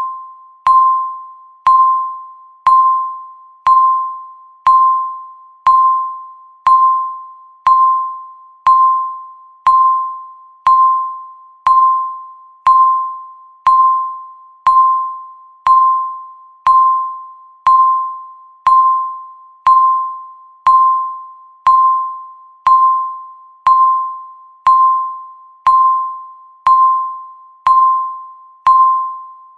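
Countdown timer beep: one short, ringing, chime-like electronic tone each second, each fading quickly before the next.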